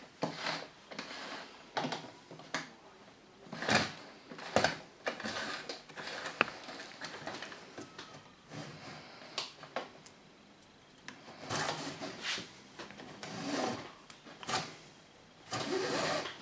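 Curtain cord being worked and pulled through a curtain track by hand: a run of irregular scraping, rubbing strokes with a few sharp clicks.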